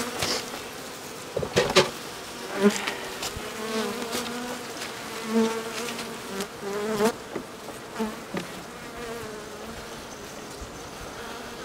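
Honeybees buzzing around an open hive, single bees passing close with wavering buzzes that rise and fade. Several sharp wooden knocks and scrapes in the first half come as a hive frame of honey stores is handled and lowered into the box.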